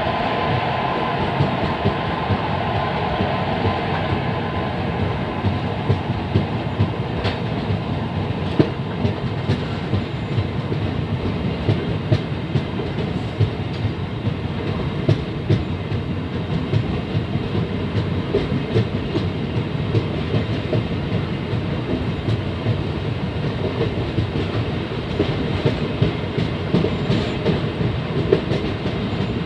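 Train running on the track: a steady rumble of wheels on rails, with many short knocks throughout.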